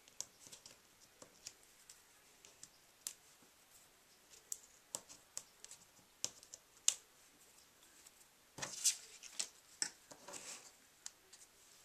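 Scattered light clicks, ticks and rustles of hands handling cardstock and peeling and pressing small foam adhesive squares, with a brief rustle about nine seconds in.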